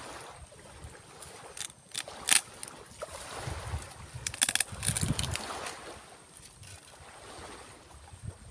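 Sharp clicks and snaps of a hand cutting tool working through dry deadwood on a santigi (Pemphis) bonsai stock: one loud crack a couple of seconds in, then a quick run of strokes with dull knocks about halfway through, over a steady rushing background.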